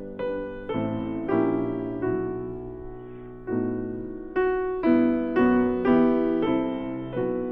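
Background piano music: slow chords and single notes struck one after another, each ringing and fading.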